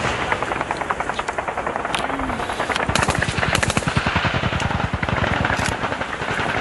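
Sustained rapid automatic gunfire, many shots a second without a break, with several louder single cracks standing out above the stream.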